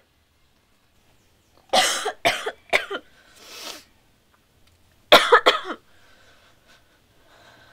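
A person coughing loudly in two fits, three coughs about two seconds in and three more about five seconds in, with a breath out between. The choking cough of someone trying a drug for the first time.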